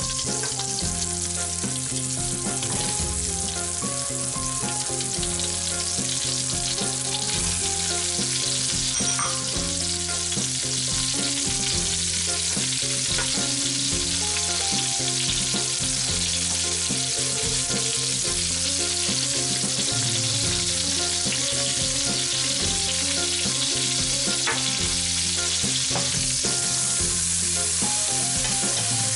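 Chopped carrot, onion and celeriac sizzling in hot fat in a stainless steel pot, steady throughout, while a spoon stirs them.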